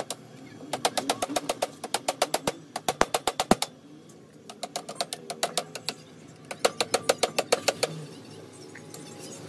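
A ratchet tool clicking rapidly, about ten clicks a second, in four bursts with short pauses between, as it works a fastener on a steering column.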